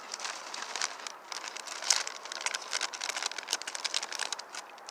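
Crunchy Flamin' Hot Cheetos being chewed close by in a series of sharp, irregular crunches, with the crinkle of the plastic snack bag as a hand reaches into it near the end.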